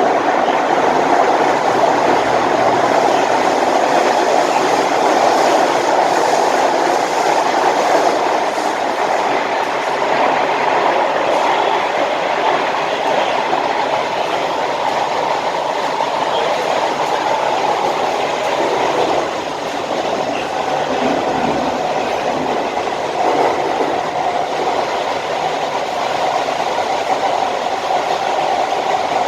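SMRT C151A metro train running on the line, a steady loud rolling noise of wheels and running gear.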